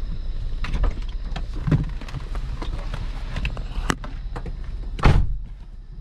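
Clicks and knocks of someone moving about and getting out of a parked car, then a car door shutting with a loud thump about five seconds in.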